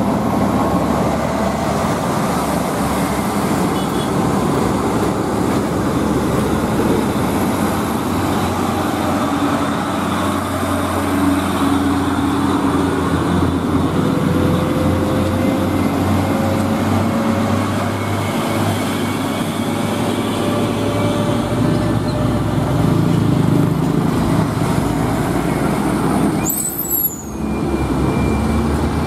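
Heavy diesel trucks driving past at close range, engines running with tyre and road noise, one after another. Near the end there is a brief high squeal.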